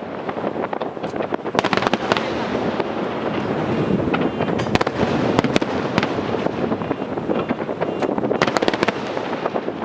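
Fireworks display in full swing: a dense, continuous crackle of bursting shells with many sharp bangs in quick succession.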